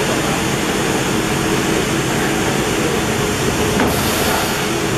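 25 kW high-frequency PVC tarpaulin welding machine running with a steady mechanical drone and hum. About four seconds in there is a click followed by a short hiss.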